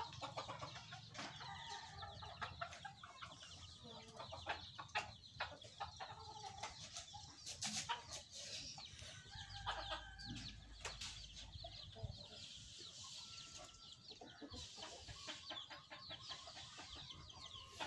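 Chickens clucking quietly now and then, with scattered light clicks and scratches.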